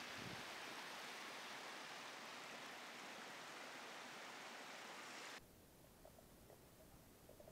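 Mountain stream water rushing over rocks, a steady hiss of running water. About five seconds in it cuts off abruptly to a quieter, muffled rumble with faint clicks, the sound of a camera underwater.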